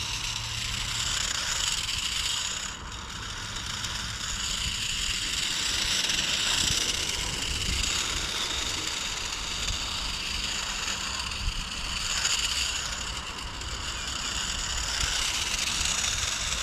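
iFlight Mecan FPV car's brushless motors and wheels running on asphalt: a steady, high-pitched mechanical whir that swells and eases every few seconds as the car speeds up and slows.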